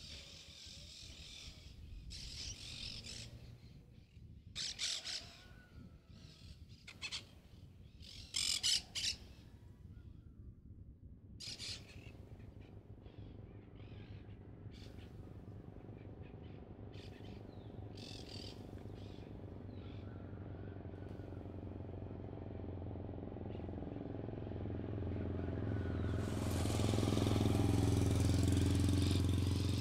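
Birds calling in a few short, high bursts. Then a motor vehicle's engine hum grows steadily louder, loudest near the end, as it approaches.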